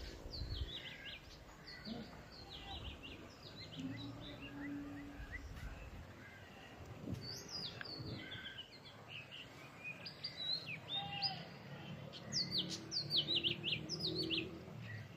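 Songbirds chirping in quick series of short, falling notes, several calls overlapping, with the busiest flurries about halfway through and again near the end.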